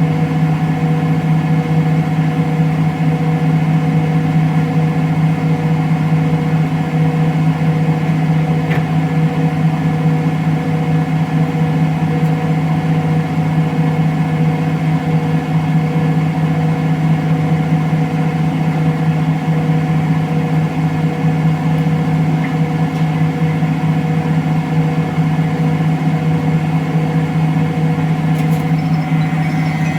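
Electrolux CompassPRO WH6-27 commercial washer spinning a duvet at a steady speed: a constant motor-and-drum hum with a steady whine above it.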